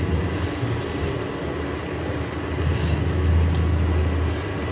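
A steady low rumble that swells for a couple of seconds past the middle, then eases off.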